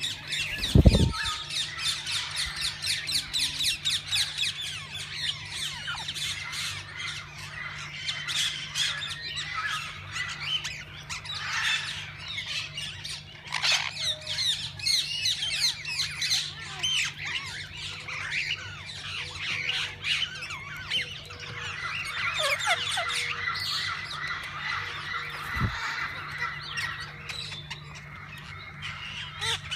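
A flock of parakeets chattering and squawking, with many overlapping short calls. There is a low thump about a second in and another near the end.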